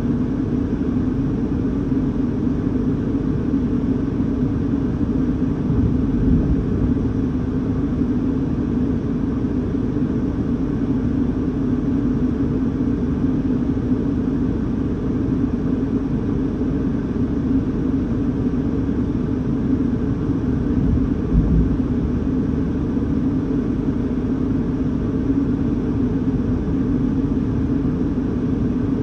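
Steady low rumbling noise of storm wind heard from inside a car cabin, with two brief deeper rumbles about six and twenty-one seconds in.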